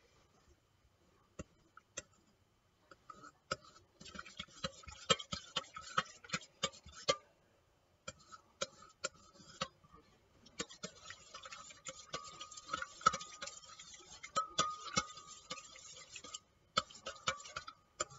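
A utensil stirring yeast into sugar water in a stainless steel mixing bowl: irregular clinks and taps against the metal with stretches of scraping swish, sparse at first and busier from about four seconds in.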